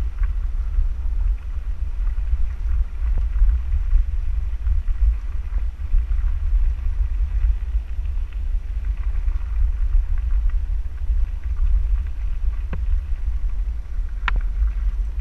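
Wind buffeting the microphone with a steady low rumble as an electric handcycle rolls over a gravel road, with a faint crunch of tyres on gravel. A few sharp clicks cut through, the loudest about a second before the end.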